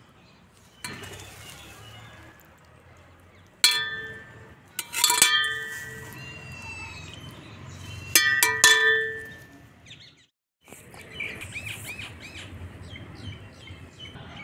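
Metal serveware clinking: a ladle and a domed lid striking an engraved metal serving bowl, sharp strikes in a few clusters, each ringing briefly. Birds chirp between the clinks and again near the end.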